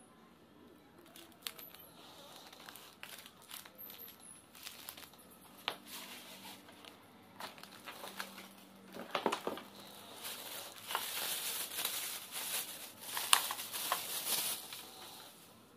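Plastic packaging crinkling and rustling as a DVD player is lifted from its cardboard box and unwrapped: scattered handling clicks at first, then louder, denser crinkling through the second half, with one sharp crackle near the end.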